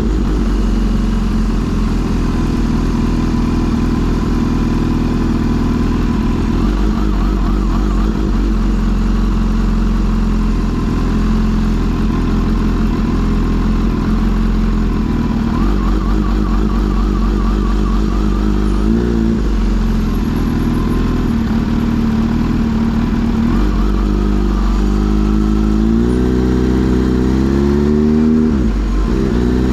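Kawasaki Z H2 SE's supercharged inline-four engine running at steady revs under way. About two-thirds of the way in, and again over the last few seconds, the revs rise and fall several times.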